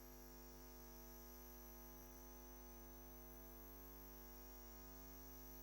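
Near silence: the sound track drops out, leaving only a faint steady electrical hum.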